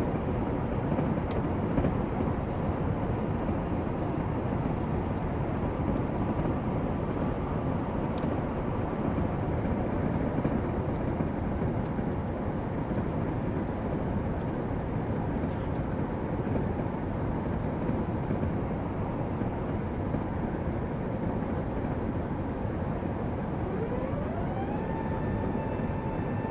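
Airbus A380 airliner making a steady, even noise, with a whine that rises and then holds steady near the end.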